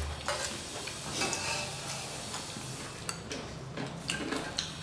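Eating by hand from metal plates: scattered soft clicks and smacks of chewing, with fingers mixing rice on the plates, a handful of irregular sharp ticks through the stretch.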